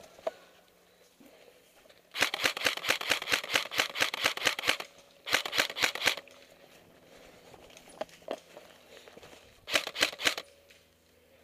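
Airsoft rifle fire: three bursts of rapid sharp clicking shots, a long burst of about two and a half seconds, then a short one, and another short one near the end.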